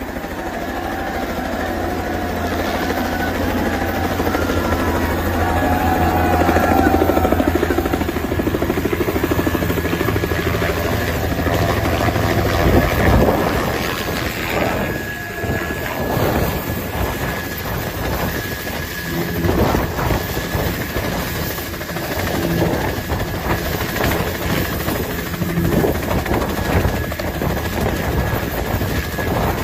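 Helicopter running close by, its rotor chopping in a fast even rhythm over a steady engine whine. The sound grows louder over the first several seconds.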